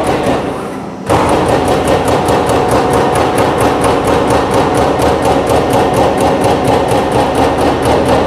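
CNC punch press punching holes in a steel sheet: a rapid, even run of punch strokes, about five a second, that starts suddenly about a second in.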